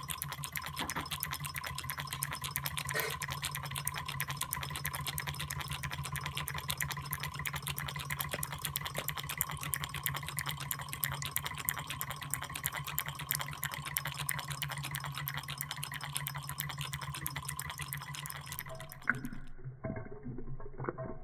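Model Stirling hot-air engine running, driving a model fountain's piston pump through a string belt: a rapid, even mechanical clatter over a steady hum. Near the end it gives way to irregular clicks and creaks.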